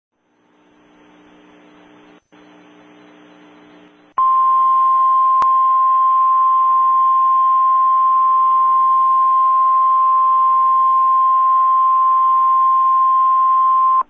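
Emergency Alert System attention tone: a single loud, steady, high-pitched beep that starts abruptly about four seconds in and holds unchanged for about ten seconds, the signal that an emergency alert message follows. Before it, faint audio from the television programme.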